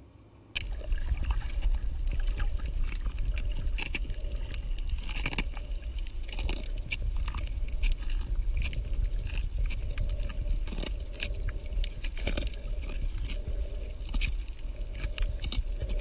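Underwater reef sound: a steady low water rumble with irregular clicks and crackles all through it. It starts abruptly about half a second in.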